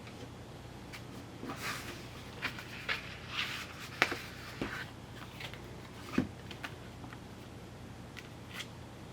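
Hands handling a CD album's packaging: scattered light clicks, taps and paper rustles, with a sharper tap about four seconds in and another about six seconds in.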